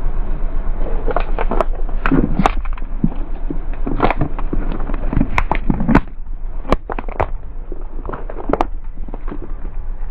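A car tyre rolling over thin white plastic bowls and crushing them: a rapid, irregular run of sharp cracks and snaps, thinning out after about six seconds.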